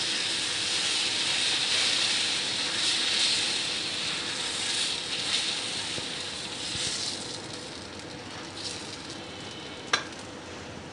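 Dosa batter sizzling on a hot nonstick tawa as it is spread in circles with the bottom of a small steel bowl. The sizzle is strongest at first and slowly dies down as the thin batter sets, with a single sharp tap near the end.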